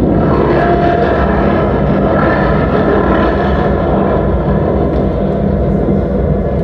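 Live electronic drone music from a modular synthesizer: a loud, dense mass of sustained tones over a heavy low rumble, with a brighter layer swelling in the middle and easing off again.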